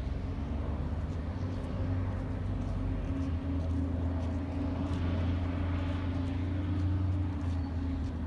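A low, steady engine hum, with a rush of wider noise swelling and easing around the middle, as of a motor vehicle running and passing.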